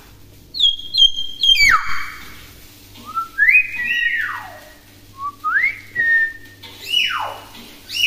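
Common hill myna whistling loudly in a string of phrases. It opens with a few sharp high notes and clicks, then gives whistles that rise and fall in pitch, and ends with swooping downward whistles.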